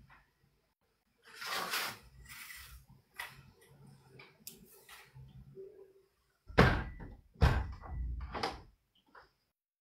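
Several knocks and thumps, the two loudest coming about six and a half and seven and a half seconds in.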